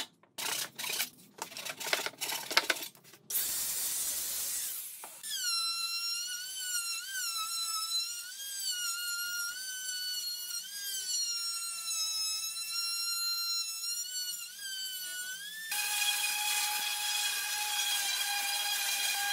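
Several hammer blows on a wooden table frame, then a Makita trim router whining, its pitch wavering and dipping as it cuts along the walnut frame. About 16 seconds in it gives way to the steadier whine of a random orbital sander.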